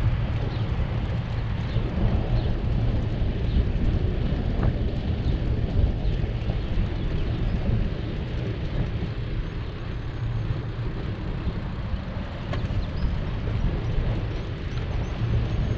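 Wind rumbling on the microphone of a moving bicycle: a steady low rumble that rises and falls a little, with no clear separate events.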